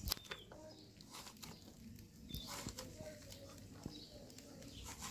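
Bottle gourd being cut into chunks on a fixed curved blade, a string of soft crisp cuts and pieces dropping onto a bamboo tray. Birds chirp faintly in the background.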